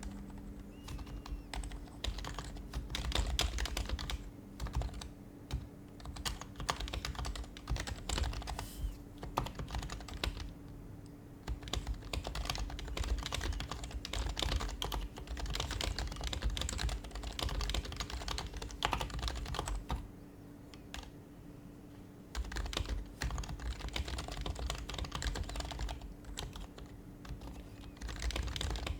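Typing on an HHKB Professional Hybrid Type-S keyboard, its quieted Topre electrostatic-capacitive keys giving soft, rapid keystrokes in bursts, with two brief pauses about ten and twenty seconds in. A faint steady hum sits underneath.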